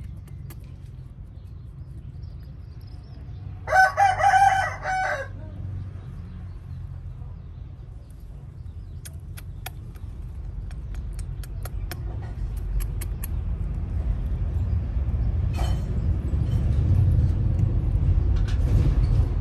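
A rooster crows once, about four seconds in, over a low rumble that grows louder in the second half, with a few faint clicks.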